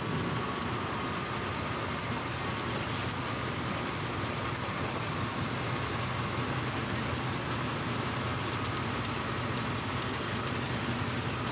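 Steady engine noise of an off-road 4x4 crawling at low speed over rock ledges, holding an even level with no revving.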